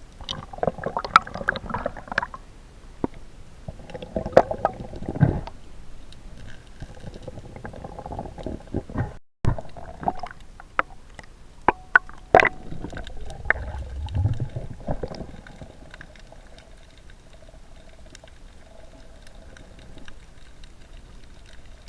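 Underwater audio: water gurgling and rumbling around the microphone, with scattered sharp clicks and knocks, growing quieter and steadier over the last several seconds.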